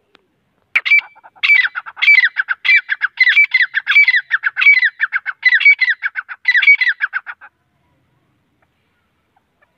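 Grey francolin calling: a loud, fast run of repeated phrases, about two a second, each made of quick notes falling in pitch. The call starts about a second in and stops abruptly about three-quarters of the way through.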